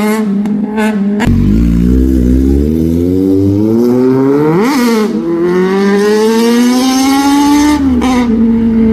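Kawasaki Z900 superbike's inline-four engine being revved. There are a few sharp pops about a second in and a quick blip up and back down near the middle. Then the revs are held and climb slowly before dropping back shortly before the end.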